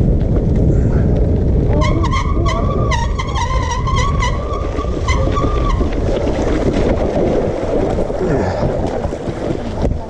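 Wind buffeting the microphone of a handlebar-mounted camera over the rattle of a bicycle riding a rough forest track. A wavering high squeal comes in about two seconds in and lasts about four seconds, with a run of sharp ticks over its first half.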